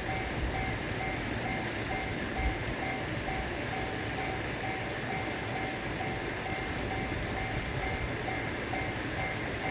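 Japanese railway level-crossing alarm ringing in an even, rapid rhythm, over a continuous low rumble.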